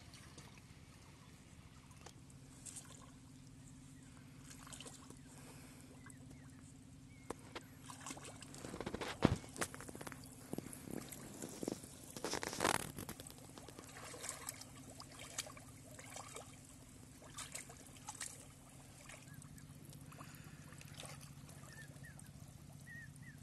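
Muddy pond water splashing and sloshing as a man wades and gropes with his hands under the surface, feeling for fish. The splashes are loudest in a cluster about eight to thirteen seconds in, over a faint steady low hum.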